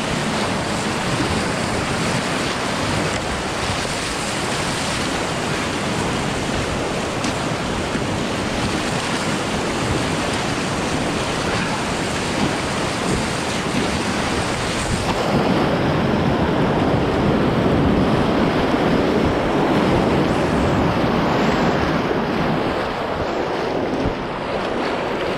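Steady rushing and splashing of whitewater rapids around a kayak, heard close up from an action camera. About halfway through, the sound turns duller and heavier as the kayak goes through the churning water.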